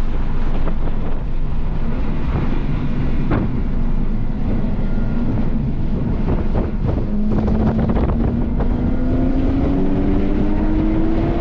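Car engine running under heavy wind buffeting on the microphone; about two thirds of the way through, the engine note begins rising steadily as the car accelerates.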